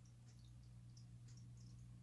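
Near silence with a faint steady low hum and many tiny scattered pops: an aquarium air pump running and air bubbling through a sponge filter.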